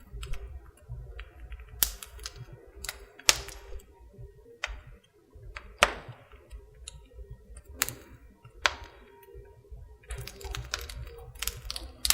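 Irregular sharp clicks and taps, scattered a second or so apart and coming thicker near the end, over a low rumble.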